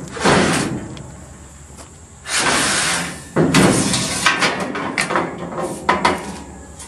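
Steel channel-iron loading ramp being slid out of its storage slot under a dump trailer's bed: metal scraping and clanking, with a sharp metal clank near the start and a run of knocks and scrapes over the last few seconds.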